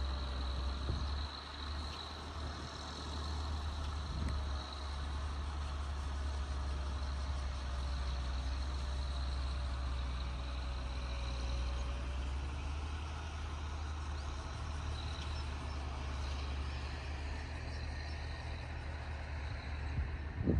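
Tractor's diesel engine running steadily at a distance as it works the field with a plough: a continuous low drone.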